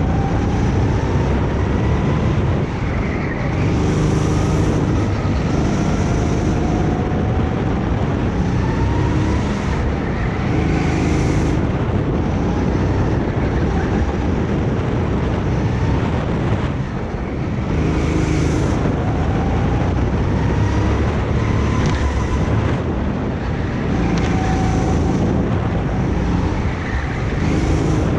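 Go-kart engine running hard, its pitch rising on the straights and dropping into the corners again and again, with wind noise on the microphone.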